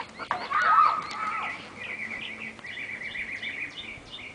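A child's loud cry in the first second and a half, then a songbird singing a run of quick, repeated chirps, about four a second.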